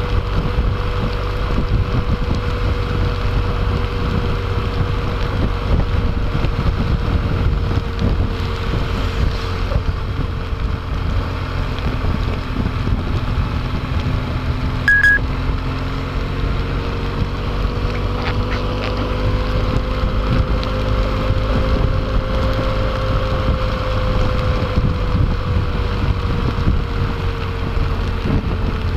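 Wind rushing over the microphone on a motorcycle riding a rain-soaked road, with the hiss of tyre spray and a faint engine drone that slowly rises and falls in pitch. A single short beep about halfway through.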